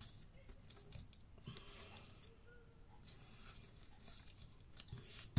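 Faint rustling and light tapping of fingers pressing a corrugated-cardboard heart onto a paper card, with a sharper click at the very end.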